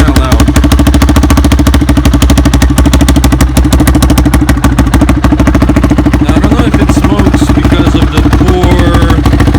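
Honda XR250R's single-cylinder four-stroke engine running steadily at idle, a rapid even firing beat.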